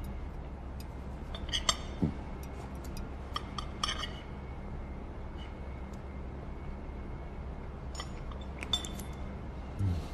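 Knife and fork clinking lightly against a plate as someone eats, in a few short clusters of clicks, about two seconds in, about four seconds in and near the end, over a steady low room hum.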